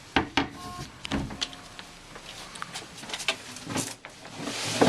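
Objects being handled and rummaged through: a few sharp knocks and clatters, scattered clicks, then a longer sliding, rustling sound near the end.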